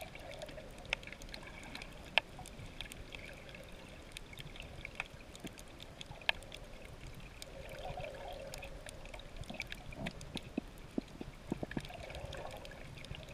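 Underwater ambience heard through a camera's waterproof housing: muffled water noise that swells now and then, with scattered sharp clicks and crackles. The loudest clicks come about two seconds in and about six seconds in.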